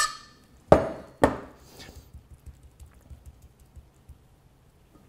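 A metal cooking pot and spoon knocking as simmered chopped onion is emptied out and spooned onto a paper towel: one sharp knock at the start, two more about a second in, then only faint light ticks.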